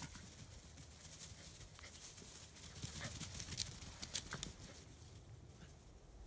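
German Shepherd puppies scuffling and wrestling on grass: scattered quick taps and rustles, busiest a little past halfway, easing off near the end.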